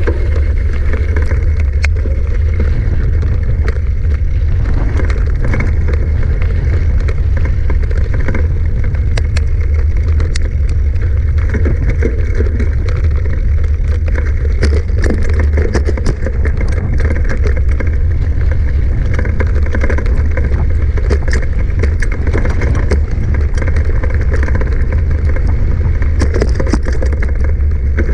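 Mountain bike being ridden, heard close up: a loud steady low rumble of wind on the microphone, with frequent small clicks and rattles.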